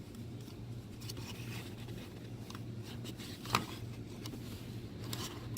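Hands handling a car's plastic headlight switch and its wiring connector: light rustling with small clicks, and one sharper click about three and a half seconds in, over a steady low hum.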